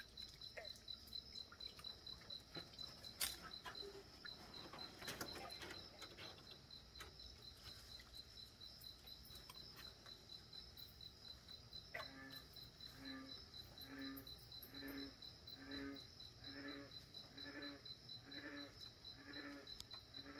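Night pond sounds: an insect trills steadily in a fast, even pulse, about five pulses a second. About twelve seconds in, a frog starts croaking a series of about ten short, low notes, roughly one a second. There are a couple of faint knocks a few seconds in.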